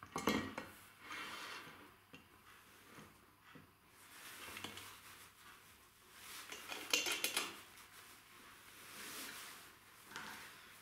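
Aluminium extrusion rail being handled and slid onto a miter gauge's wooden fence: metallic clinks, knocks and scraping. The loudest are a clank right at the start and a cluster of clanks about seven seconds in.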